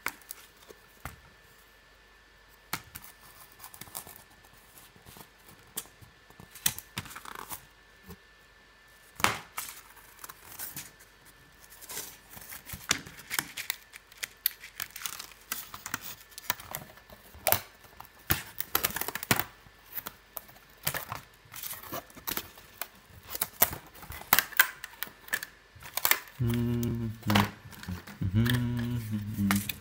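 Die-cut cardboard puzzle pieces being pressed and popped out of their sheets: irregular clicks, snaps and short tearing and crinkling of card, with paper sheets being handled. A low pitched hum comes in near the end.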